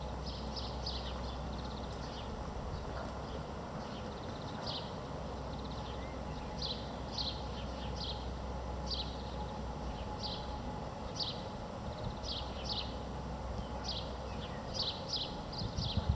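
Outdoor ambience: a small bird chirping in short, high notes that slide downward, repeated irregularly several times, over a steady low hum.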